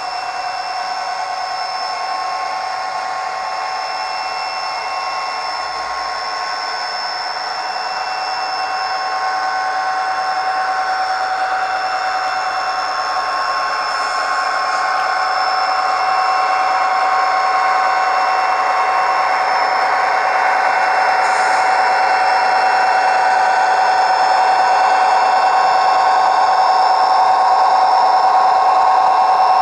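Digital sound decoder in an HO-scale SD45 model locomotive playing its diesel engine sound through the model's small speaker: a steady engine drone with fixed high whining tones, gradually getting louder through the middle.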